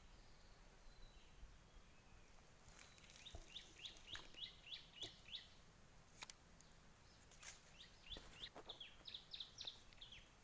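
Faint bird calling: two runs of short, quick, downward chirps, several a second, starting about three seconds in and again in the second half, with a few faint clicks between.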